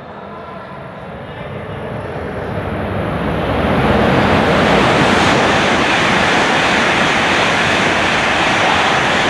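E7/W7-series Shinkansen passing through a station at speed without stopping. The rush of air and running noise grows over about four seconds as the train approaches, then holds as a loud, steady rushing noise while the carriages sweep past.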